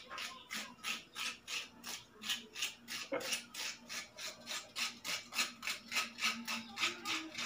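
Rapid, even scraping strokes, about four to five a second, as food held in the hand is scraped with a small kitchen knife.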